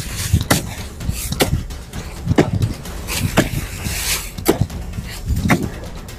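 A hoe chopping into dry earth in a steady digging rhythm, about one strike a second, each a dull thud with a sharp edge.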